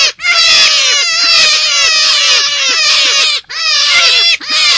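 A dense run of high, squealing animal calls, each sliding sharply down in pitch, several a second, with brief breaks near the start and twice in the second half. It is a recorded lure call sold as the cry of a forest rabbit.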